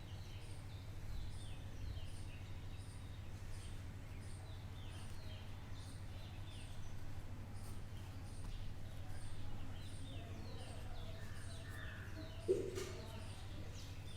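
A bird chirping over and over at an even pace, more than one short high chirp a second, over a steady low hum. A single short knock comes near the end.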